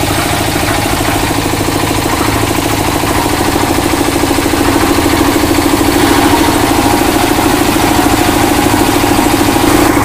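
Diesel engine of a 1.5-bag concrete mixer running steadily with a fast, even beat, driving the drum; a little louder from about halfway through. It runs without rattle or rumble from the drum gearing.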